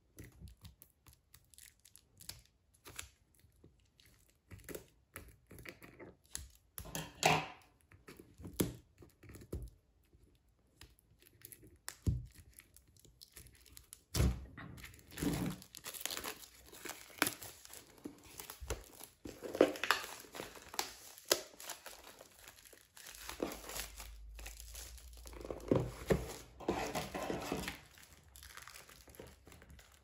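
Clear plastic shrink wrap being cut and peeled off an album box. Light clicks and taps of handling in the first half, then steady crinkling and tearing of the plastic from about halfway on.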